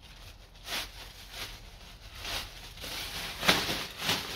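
Fabric grass-collection bag of a lawn mower rustling and flapping as it is unfolded and shaken out by hand, in about five short bursts, the loudest about three and a half seconds in.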